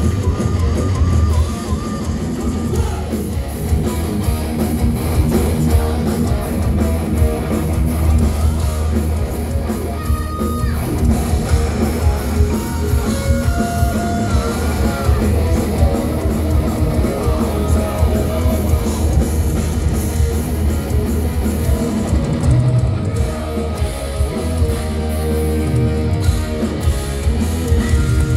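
Thrash metal band playing live at high volume: distorted electric guitars, bass guitar and a pounding drum kit through a club PA, with held lead guitar notes partway through.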